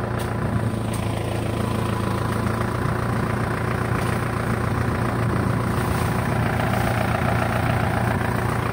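Truck engine running steadily at a low hum, without revving.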